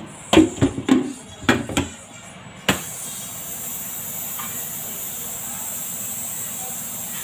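About six sharp knocks in quick succession, then a click and a steady hiss.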